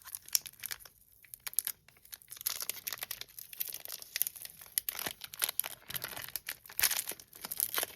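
Foil wrapper of a Pokémon TCG booster pack crinkling and tearing as it is worked open by hand, sparse at first, then a dense run of crinkles from about two seconds in.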